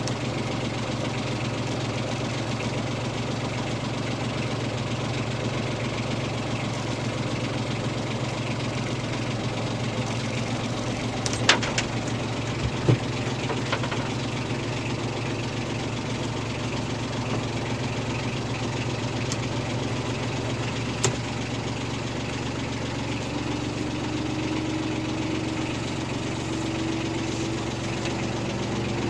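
Small boat's engine running steadily at low speed as it idles along. There are a few sharp knocks about 11 and 13 seconds in, and another near 21 seconds. In the last third a faint tone slowly rises in pitch.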